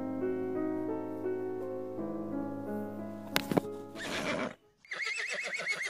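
Soft keyboard music of held notes, cut by a sharp short noise about three and a half seconds in, then a horse whinnying with a quavering high pitch near the end.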